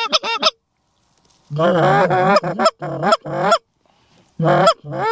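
Canada goose honks and clucks in quick runs, several calls in a row, then a pause of about a second before the calling picks up again and carries on to the end.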